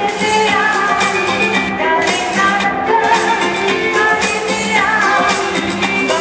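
Live pop band playing an upbeat song with a sung lead vocal over electric guitars, keyboards and drums, amplified through the PA.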